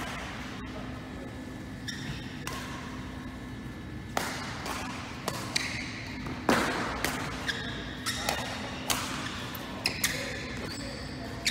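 Badminton rally: sharp racket hits on the shuttlecock mixed with footfalls on the court, starting about four seconds in and coming at uneven spacing, with the strongest hit past the middle. A few short squeaks, typical of court shoes, come before and near the end.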